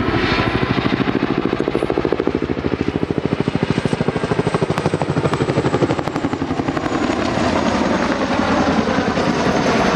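Boeing CH-47 Chinook tandem-rotor helicopter flying by, its rotor blades beating in a rapid, even throb. The blade beat is plainest for about the first six seconds, then gives way to a steadier rotor and engine noise.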